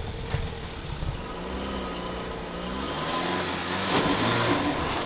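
Suzuki Ignis engine revving under load as the car climbs a steep dirt bank, its note wavering in pitch through the middle of the climb.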